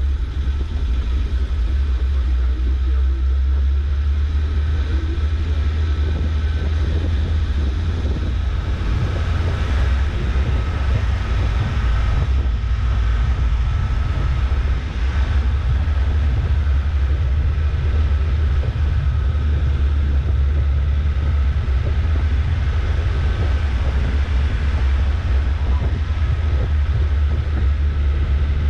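Suzuki SJ413 off-roader on the move, a steady low rumble of engine and drivetrain with a thin steady whine above it.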